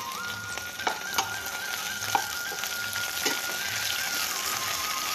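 Oil sizzling steadily in a frying pan around banana-leaf-wrapped fish parcels on a low flame, with a few sharp pops, under a faint held note of background music.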